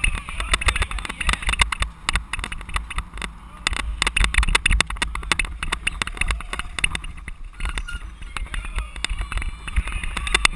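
Continuous irregular rattling and knocking from a cyclocross bike and its rear-facing mounted camera jolting over bumpy grass, with wind rumbling on the microphone.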